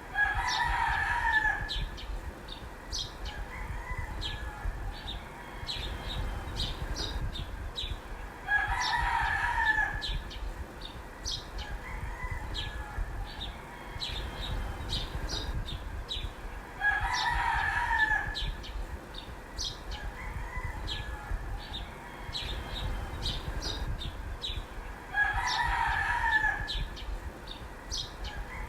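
Rooster crowing four times, each crow about two seconds long and spaced about eight seconds apart, with small birds chirping throughout.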